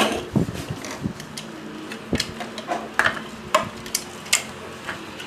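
Hard plastic Play-Doh toy pieces clicking and knocking as they are handled, fitted together and set down on a wooden table. There are about nine separate light clicks over a few seconds.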